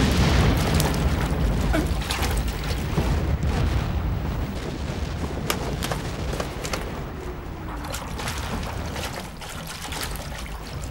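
Battle sound effects: scattered rifle shots crackling over a deep, steady rumble of explosions, the din easing somewhat toward the end.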